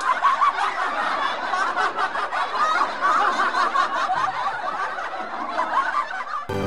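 Canned crowd laughter: many people chuckling and laughing together in a dense wash, cutting off suddenly near the end.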